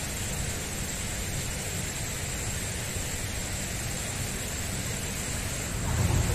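Steady outdoor hiss with a low rumble and a thin, steady high whine; about six seconds in, a vehicle's engine grows louder as it passes on the road.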